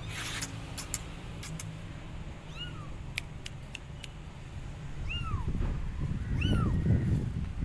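Young kittens meowing: three short, high meows that rise and fall, one a little under three seconds in and two close together near the end. These are the calls of abandoned kittens crying for their mother.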